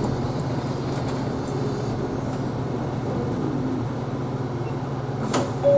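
Isuzu Erga Hybrid city bus running as it pulls away from a stop, a steady low drone with a faint rising whine from the drivetrain as it gathers speed. A sharp click sounds near the end.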